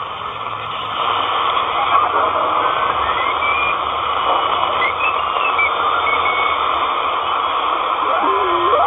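Audio from a Malahit-clone DSP SDR receiver being tuned through the 40-metre amateur band in lower sideband: a steady hiss of band noise, with thin whistling tones that step and slide in pitch as the frequency changes. Near the end one tone sweeps sharply upward.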